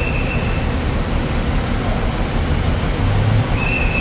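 Loud, steady vehicle noise: an even roar with a low rumble beneath it. Two short high beeps sound, one at the start and one near the end.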